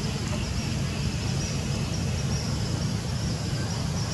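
Steady outdoor ambience: insects chirring in a high, even band over a low, steady rumble.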